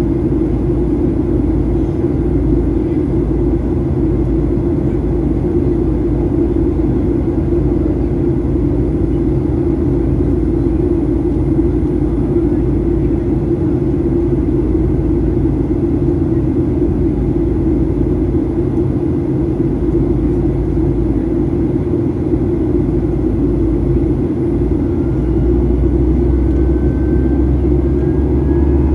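Steady cabin drone of a Boeing 737-800's CFM56-7B turbofan engines and airflow, heard from a window seat in flight. The low rumble grows slightly stronger near the end.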